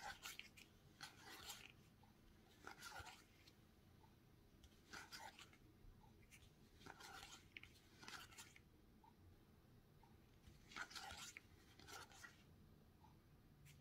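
Faint swishes and flicks of stiff playing cards being slid one at a time off a hand-held deck into the other hand. They come every second or so, unevenly spaced.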